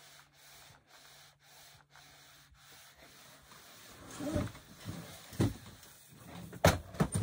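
Steam iron sliding back and forth over fabric on a pressing board, a faint rubbing. About four seconds in come a few knocks and bumps, the sharpest near the end.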